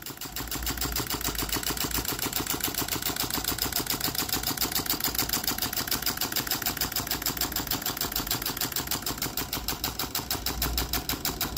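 Homemade tin-can Stirling engine running on the sun's heat, clattering in a fast, even rhythm as it turns a small DC motor as a generator through a string belt.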